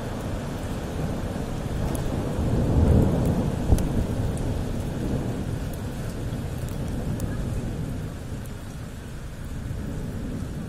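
Thunder rumbling over steady heavy rain, the rumble loudest about three to four seconds in and then slowly dying away, with the hiss of the rain going on beneath it.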